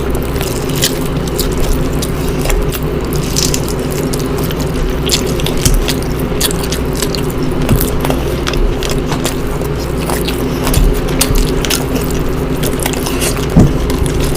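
People eating rice and curry, with chewing and many short, sharp mouth clicks and smacks scattered throughout. Under it runs a steady low background drone.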